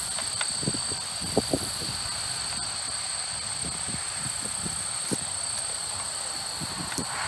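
Steady insect chorus holding two even high-pitched tones, with a few small clicks as wires and a hand tool are handled.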